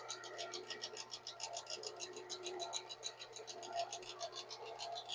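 Knife handle scales being sanded to curve their insides: a low, scratchy sanding sound, over a steady low hum and a fast, even, high pulsing of about eight beats a second.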